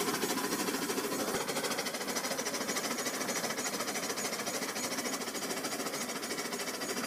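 Toy train running along its track, its motor and wheels making a fast, even mechanical clatter.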